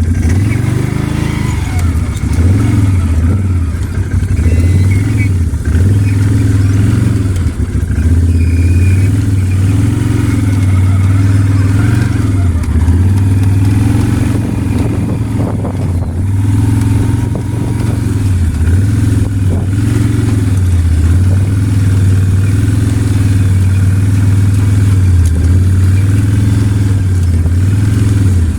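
A small farm vehicle engine running, its pitch dipping briefly every few seconds and rising back as the throttle changes.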